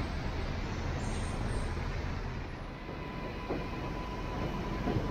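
Rainy city street noise: road traffic running on wet pavement, with a faint steady whine coming in about halfway through.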